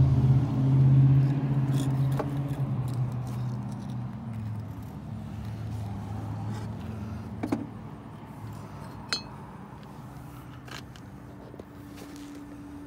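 A motor's hum fades out over the first few seconds. Then sharp metal clinks, twice, as steel tongs work a steel ingot mold to knock out a freshly cast copper ingot.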